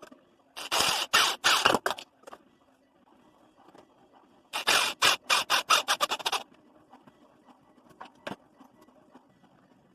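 Two bursts of quick, harsh strokes, about five a second, each burst lasting under two seconds, with a single sharp hit later. This is hand work on a Maglite flashlight whose last battery is stuck inside.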